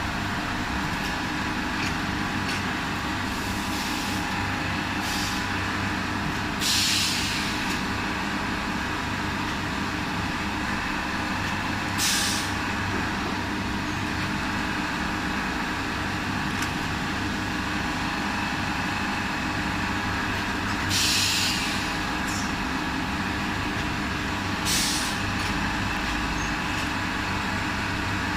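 High-frequency TPU welding and cutting machine running with a steady hum, broken by several short air hisses at irregular intervals.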